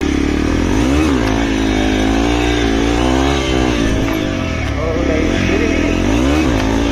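Hero Xpulse 200's single-cylinder four-stroke engine under way, its pitch rising and falling with the throttle, dipping about a second in and again near the end.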